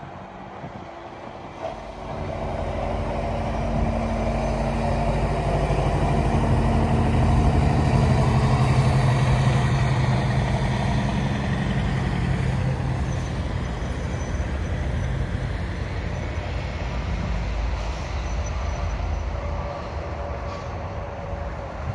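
Tractor-trailer passing on the highway: a steady diesel engine drone with tyre noise that builds from about two seconds in, peaks near the middle and slowly fades.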